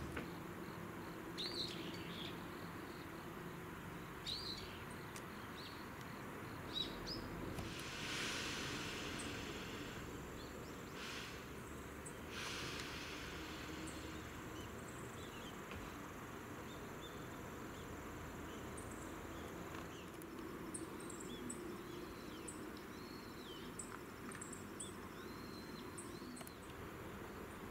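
Quiet rural outdoor ambience: small birds chirp now and then over a steady low background, with short high chirps ticking at intervals near the end.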